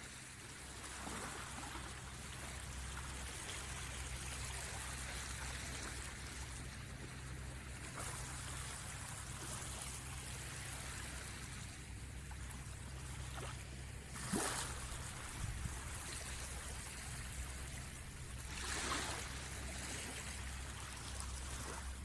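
Small waves of a calm sea washing up a flat sandy shore, a steady hiss of water with a sharper splash a little past the middle and another a few seconds later.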